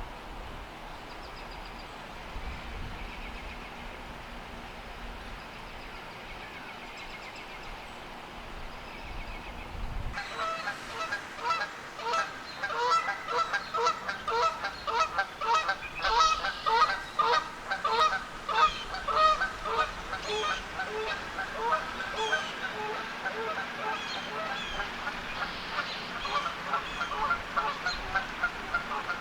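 Geese honking: after a quiet stretch with faint small-bird chirps and a low background rumble, a flock bursts into loud, rapid honking about ten seconds in, several calls a second overlapping, and keeps it up.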